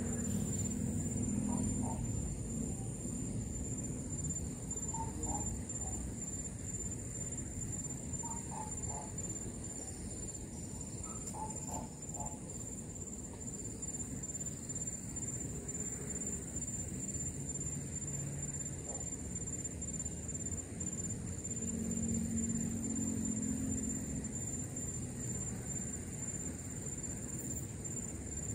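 A steady, high-pitched insect drone over a low rushing background, with a few faint short chirps in the first half.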